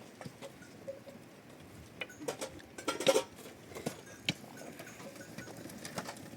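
Small livestock bells clinking among a flock of sheep and goats, with scattered knocks and clatter that are loudest about three seconds in.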